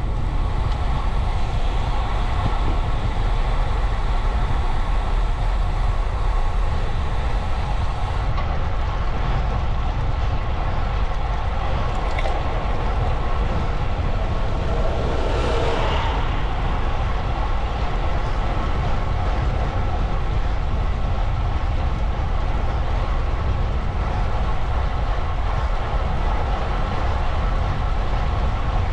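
Steady wind buffeting and rolling road noise from a bicycle ride, a continuous low rumble.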